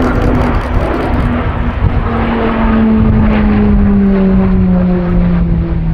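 Pilatus PC-21 turboprop trainers flying past in formation, a loud steady propeller drone that slides slowly down in pitch as they pass.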